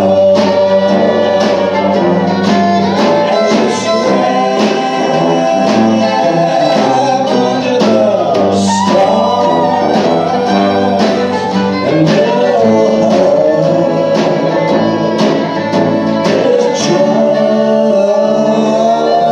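Live acoustic band playing with a steady beat: fiddle carrying the melody over acoustic guitar, drum kit and tuba.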